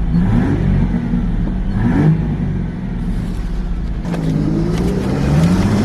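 V6 Ford Mustang engine accelerating hard, its note climbing several times as it revs up. It runs smoothly, with no stumble, after a tune-up that cured its misfire.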